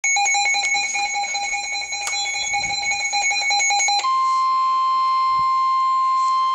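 NOAA weather alert radio going off: a rapidly pulsing electronic alarm with several pitches for about four seconds, then the steady 1050 Hz warning alarm tone, which cuts off near the end. This tone signals a weather warning broadcast, here a severe thunderstorm warning.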